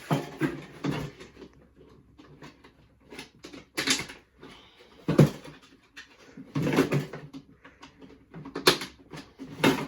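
A fall protection kit's case being struggled open by hand: irregular rustling and scraping with several sharp clacks spread through.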